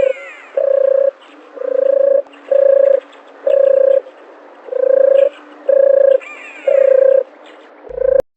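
An animal call: a single low note, each held about half a second at an even pitch, repeated about every two-thirds of a second. A brief falling chirp from another bird sounds near the start and again near the end.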